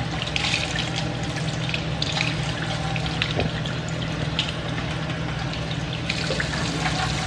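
Tap water running steadily from a faucet-mounted filter onto rice in a mesh strainer and splashing into a stainless steel sink, as the rice is rinsed by hand until the water runs clear.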